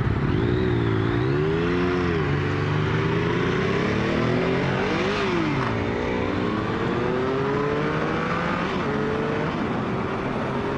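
Triumph 1050 three-cylinder motorcycle engine under hard acceleration: the revs climb, drop at a gear change about five seconds in, climb again, then settle to a steady cruise near the end, with wind rushing past the microphone.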